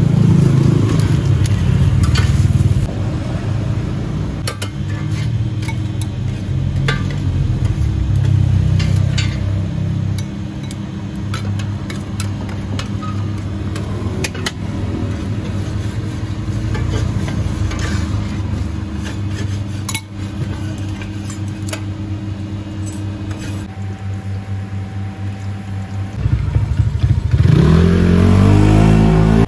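Street-stall ambience: a motor engine runs steadily under scattered clinks and taps of dishes and utensils. Near the end, an engine, typically a passing motorcycle, revs up with a rising pitch.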